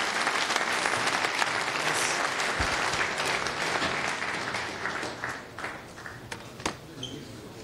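Audience applauding, dying away about five seconds in, followed by a few light knocks near the end.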